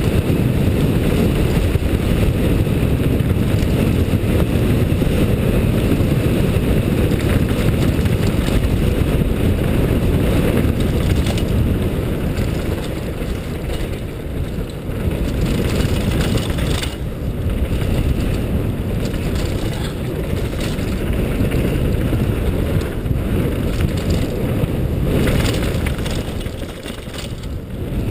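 Downhill mountain bike's tyres rolling fast over gravel and packed dirt, mixed with wind buffeting the helmet camera's microphone as a steady loud rumble. The noise eases briefly about halfway through and again near the end.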